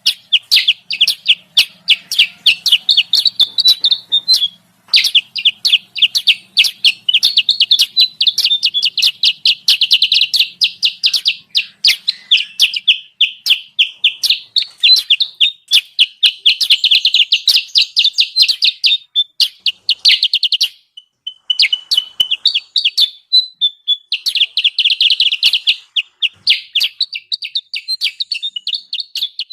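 Kutilang sutra bulbul lure call (suara pikat): fast, dense chattering chirps, almost unbroken, with short breaks about four and a half seconds in and around twenty-one and twenty-four seconds. It is played to draw wild kutilang sutra down to the trap.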